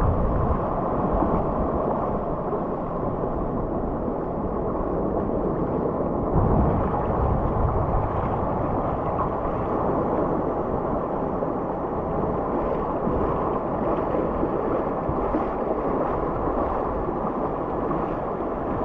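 Ocean surf and shallow water washing around, a steady rushing noise with wind on the microphone.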